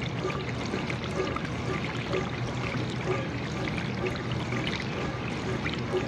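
GE dishwasher running, water spraying and splashing steadily inside the tub, with a faint pulse about once a second.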